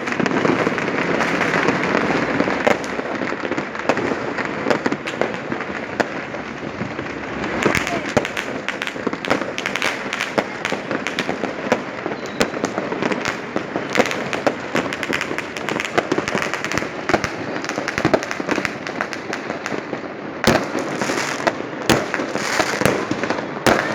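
New Year fireworks and firecrackers going off all around, many overlapping bangs and pops over a steady crackle, with a few sharper, louder bangs about twenty seconds in and near the end.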